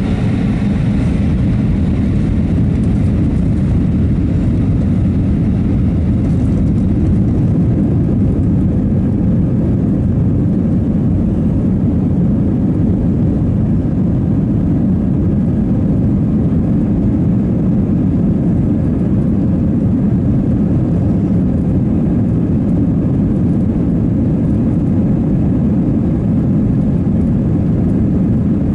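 Steady low rumble of an Airbus A320's IAE V2500 jet engines and airframe, heard from inside the passenger cabin while the aircraft rolls on the ground.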